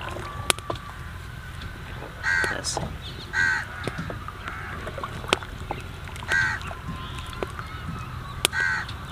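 Crows cawing repeatedly, short harsh calls a second or more apart. Now and then comes a sharp click as a wooden spoon knocks against the clay cooking pot during stirring.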